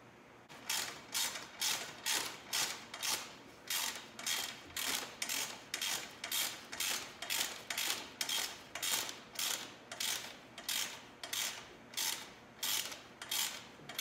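Hand socket ratchet being worked back and forth, about two clicking strokes a second, running a mounting bolt in on a motorcycle crash bar.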